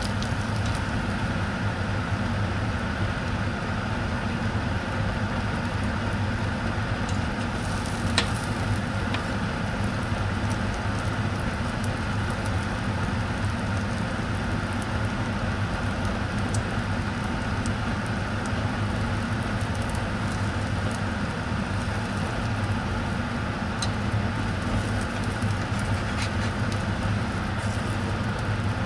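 Egg-soaked sandwich sizzling steadily in a nonstick frying pan over a constant low hum, with a few sharp clicks, the loudest about eight seconds in.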